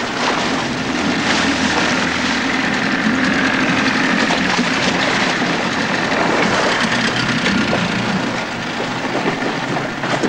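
Evinrude outboard motor running steadily on a small aluminium dinghy under way, with water rushing and splashing against the hull.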